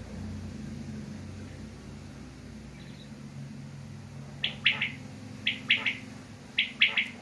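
Caged quail (batair) calling: about halfway in it starts giving quick three-note phrases, repeated three times about a second apart.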